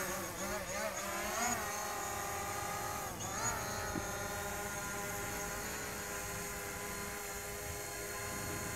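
DJI Mavic Pro quadcopter drone flying close by, its propellers giving a steady buzzing whine. The pitch wavers up and down near the start and again about three and a half seconds in as the drone manoeuvres, then holds steady.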